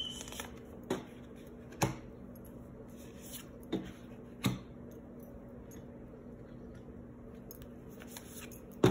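Tarot cards being handled and laid down on a table: about six sharp card snaps and taps, irregularly spaced, over a faint steady hum.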